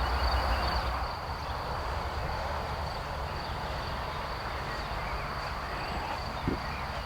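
Outdoor ambience: a steady, high-pitched insect trill, typical of crickets, over a low even hiss.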